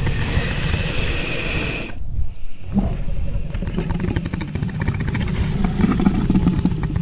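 Dragon sound effect: a loud, rough roaring growl with a deep rumble, breaking off briefly about two seconds in and then resuming as a rasping, pulsing growl.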